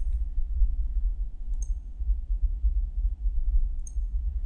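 Computer mouse clicking three times, a couple of seconds apart, as entries in a software menu are selected, over a steady low hum.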